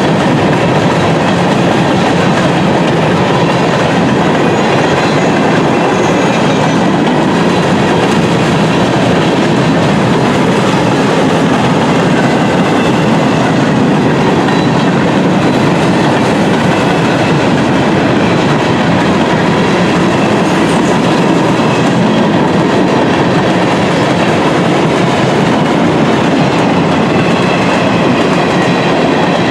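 Railroad cars of a passing train rolling by on the track: a steady, loud noise of wheels on the rails that keeps going without a break, with faint high ringing tones above it.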